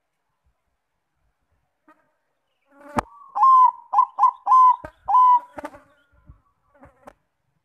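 Zebra dove (perkutut bangkok) cooing: a quick run of five short notes, each sliding up then holding, starting about three seconds in. A sharp click comes just before the run, and a few soft clicks follow it.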